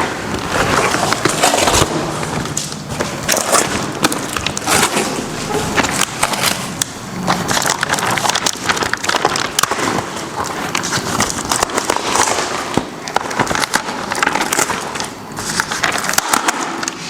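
Protective packaging around a photo frame being torn open and unwrapped by hand: continuous rustling and crinkling of plastic covers and cardboard, with many sharp crackles and scrapes.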